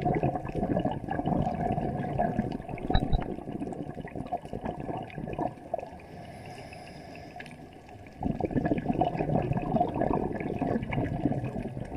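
Underwater bubbling and rushing of water, loud for the first few seconds, dropping away for a couple of seconds, then surging again about eight seconds in.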